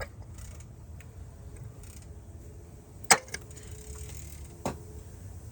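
GM 2.4 L dual-overhead-cam four-cylinder engine running with a steady low rumble and two sharp, loud knocks about three and four and a half seconds in. The knock comes from the valvetrain, which the owner takes for a cam or valve in the head 'hitting hard'.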